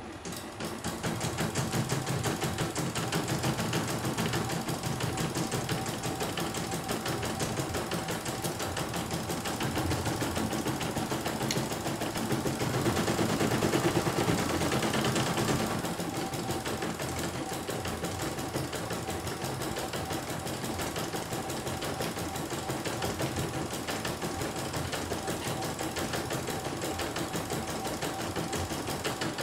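CNY E900 computerized embroidery machine stitching a design: a fast, steady run of needle strokes, a little louder for a few seconds midway.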